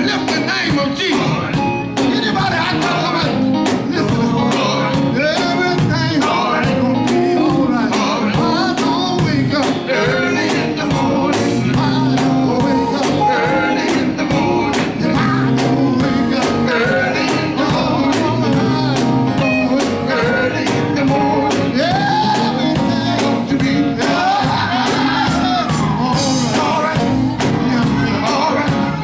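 Live gospel quartet music: voices singing over a band with guitar and a steady drum beat.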